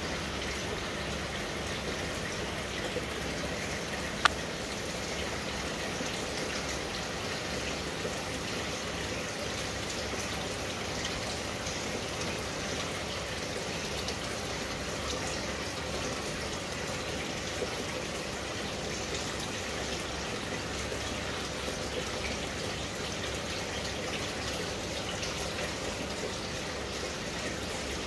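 Aquarium water bubbling and trickling from an air-driven sponge filter: a steady wash with many small popping ticks, and one sharp click about four seconds in.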